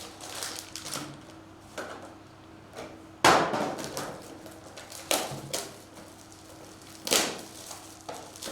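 A few sharp knocks and scraping rustles of card boxes and packs being handled on a table. The loudest knock comes about three seconds in, and fainter ones follow around five and seven seconds.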